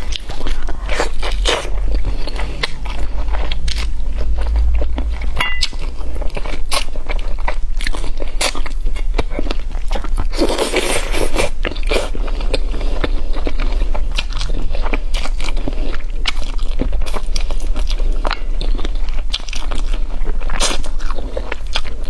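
Close-miked chewing and biting of crisp fried meat, with many sharp crunches and a denser burst of crunching about ten seconds in. A steady low hum runs underneath.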